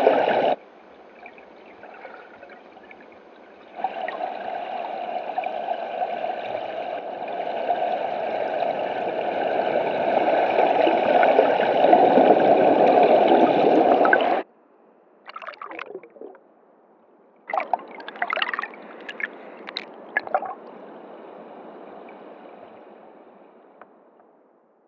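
Rushing, gurgling river water heard through an underwater camera, in several cut segments. It is loud until it cuts off suddenly about 14 seconds in, then comes back in shorter crackly stretches before fading out near the end.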